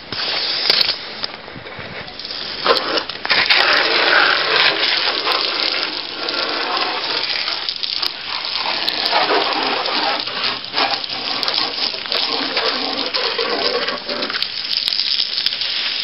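Water jetting from a hose nozzle and splashing on gravel and the scooter, a steady hiss that starts about two seconds in and eases off near the end.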